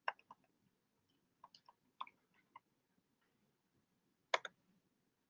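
A few faint, scattered computer keyboard keystrokes in small clusters, with a slightly louder one about four seconds in.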